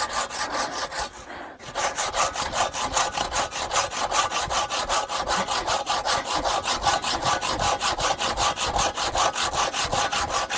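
Large hand saw cutting through wood in fast, even strokes, with a brief pause about a second in.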